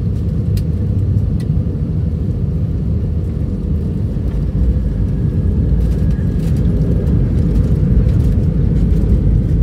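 Airbus A320-200 landing, heard inside the cabin: a steady low rumble of engines and airflow that grows louder in the second half as the wheels meet the runway and the ground spoilers come up, with a few faint clicks.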